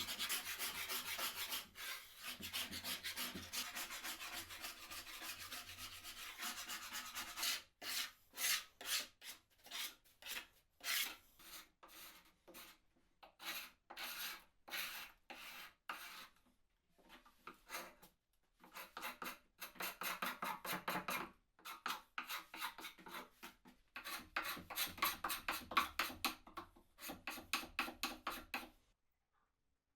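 A hand tool rubbing back and forth over wood: a steady scrape for the first several seconds, then separate strokes at about two a second, stopping abruptly near the end.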